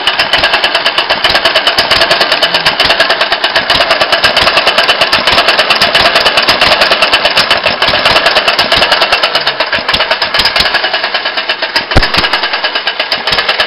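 Homemade open-crank single-cylinder hit-and-miss petrol engine running, a rapid, even mechanical beat, with one sharper bang about twelve seconds in.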